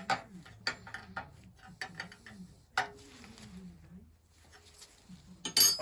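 Scattered metallic clicks and knocks of tools and engine parts being handled on the bench, with a louder clatter near the end. A low cooing call warbles underneath.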